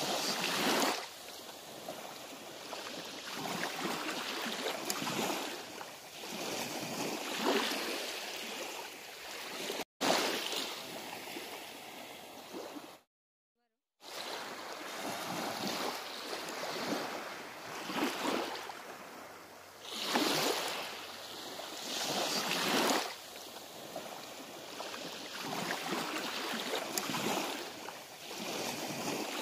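Small waves washing onto a sandy beach, the surf swelling and falling back every two or three seconds, broken once by about a second of silence partway through.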